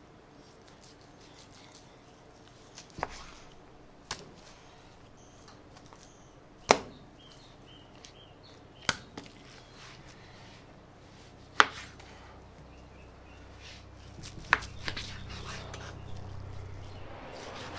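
A knife cutting raw brisket into chunks on a plastic cutting board, with about six sharp, separate knocks as the blade and meat hit the board. A low rumble builds near the end.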